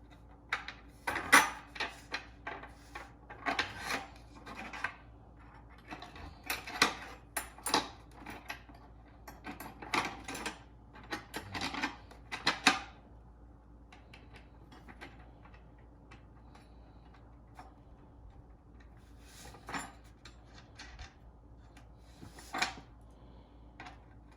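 Seat-mounting hardware being handled and fitted: irregular clanks, scrapes and rubbing of metal base pieces, rails and screws for about the first half, then a couple of separate knocks.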